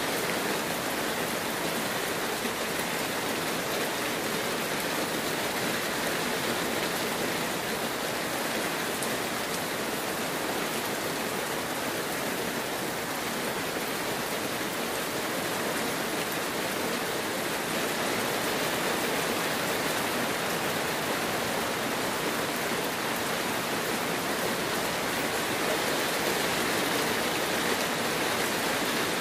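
Heavy rain pouring steadily, an even hiss that holds at one level throughout.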